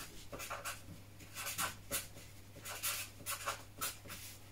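Felt-tip marker writing on paper: a string of short, irregular pen strokes as a word is written out.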